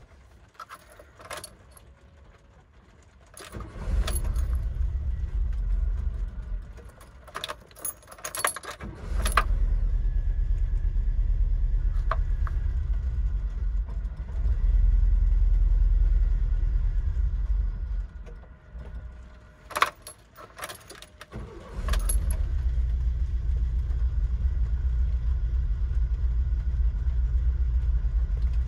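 Volkswagen Vanagon engine on a cold start: keys jangling at the ignition, then the engine starts and runs only a few seconds before dying. It is started again, runs for several seconds and dies once more, and on the third start keeps running at a steady idle, the cold-start fault of this van.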